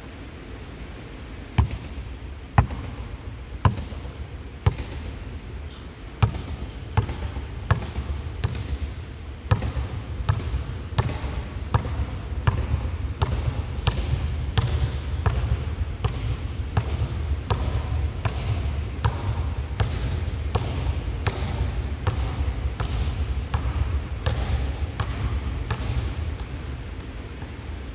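A basketball being dribbled on a hardwood court in a large, empty arena: sharp, evenly spaced bounces, about one a second at first, quickening to about two a second after several seconds.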